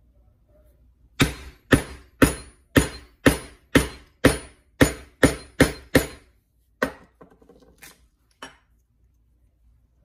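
Poly maul striking a slot punch through leather on a granite slab to cut a belt slot: about eleven sharp knocks, about two a second, each with a brief metallic ring, then three lighter strikes.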